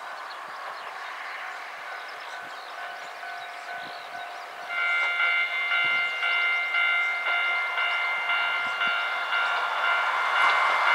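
Railway crossing alarm ringing in a steady repeating pattern of ringing tones, about two strokes a second, warning of an approaching train. A fainter crossing bell is heard first, then the nearby alarm starts loud about halfway through. Train noise grows toward the end.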